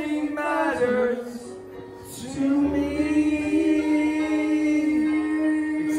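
A man singing karaoke into a microphone over music, holding one long note through the second half.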